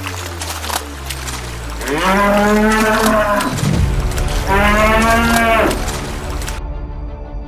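A bull mooing twice, two long calls of a little over a second each, about a second apart, over water splashing as it surges through a lake. The splashing stops about a second after the second moo.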